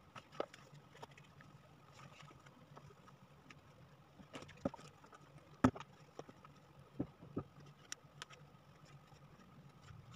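Scattered light taps and rustles of hands pressing adhesive wood-grain wallpaper onto a wooden cabinet door, the sharpest tap a little past halfway in, over a faint steady low hum.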